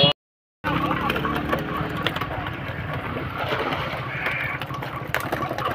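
Water splashing as people wade through a shallow concrete fish tank catching fish, over a steady low engine-like hum. The sound drops out briefly just after the start.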